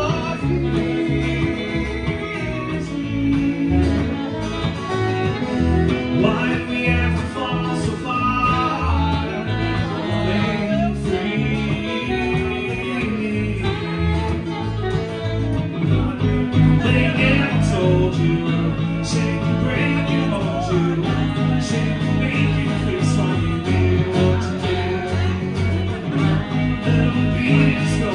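Live band playing a song, with singing over the instruments.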